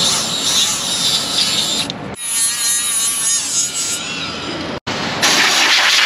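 A Milwaukee cordless rotary tool with a small flap disc grinding rust and corrosion off a steering knuckle's hub bearing bore, cleaning the seat so the new bearing sits correctly. Rough grinding noise for about two seconds, then a steady high whine, a momentary break just before five seconds, and rough grinding again.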